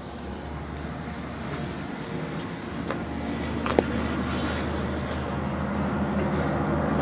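Steady road traffic rumble that grows gradually louder over the seconds as a vehicle draws near, with a couple of light clicks about three to four seconds in.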